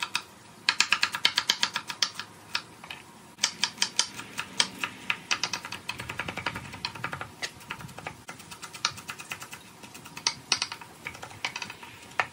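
Chef's knife chopping onion on a thick wooden slab cutting board: rapid runs of sharp knocks of the blade on the wood, with short pauses between runs, moving on to cilantro near the end.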